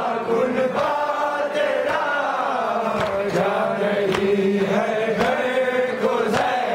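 A group of men chanting a nauha, a Shia Muharram lament, in long held, gliding lines, with sharp slaps of hands beating on chests (matam) about once or twice a second.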